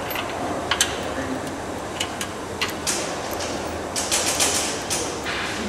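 Sharp metallic clicks and clinks of small parts being handled and unfastened on an electric motor's chain-drive mount, scattered singly and bunched closer together about four seconds in, over steady background noise.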